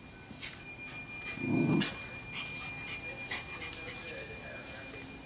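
Two terriers play-fighting: a small jingling and clinking of metal, with scuffling. A short low grumble comes about a second and a half in, over thin high ringing tones that hang on.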